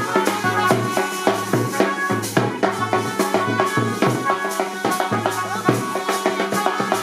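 Dance music with a busy, regular percussion beat over a steady bass line and melody.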